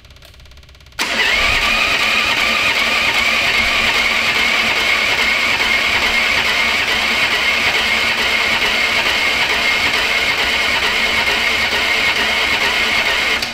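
Electric starter cranking a turbocharged, fuel-injected Predator 420cc engine for about twelve seconds without it catching; it starts about a second in and stops abruptly. The engine does not fire, a sign that the fuel system is not yet primed.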